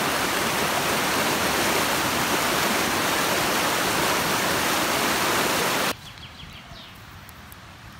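Fast-flowing stream rushing over rocks in whitewater: a loud, steady rush of water that cuts off suddenly about six seconds in, leaving a much quieter background.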